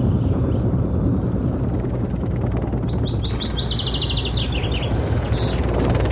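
Helicopter flying low and approaching, its rotor and engine noise a heavy, steady rumble. Birds chirp over it, with a quick run of chirps about halfway through.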